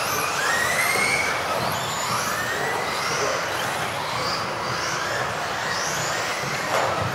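Several electric RC off-road cars racing together. Their motors whine, overlapping, rising and falling as the cars accelerate and brake, over a hiss of tyres on the track. A sharp knock sounds near the end.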